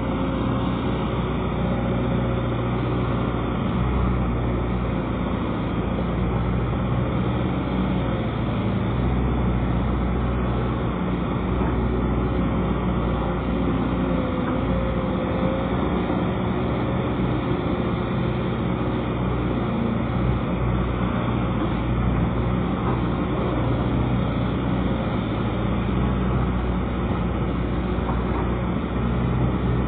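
Excavator's diesel engine running steadily, with a low, even drone.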